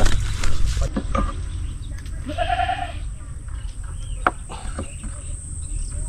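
A goat bleats once, briefly, about two and a half seconds in, over a steady low rumble and a few scattered clicks.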